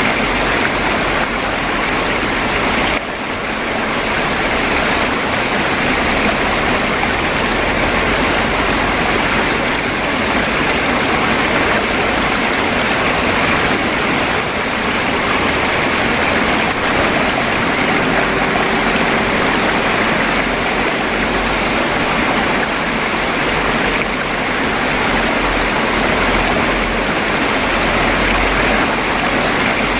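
Stream water flowing and babbling over stones, a steady, dense rush.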